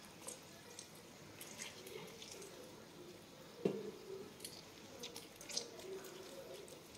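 Lime halves being squeezed by hand over a steel bowl of spice powder, faint juice drips and small wet clicks. One sharper tap comes about three and a half seconds in.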